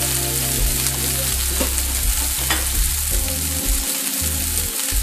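Turkey patties frying in hot oil in a stainless steel skillet: a steady sizzling hiss, with low steady tones underneath that change in steps.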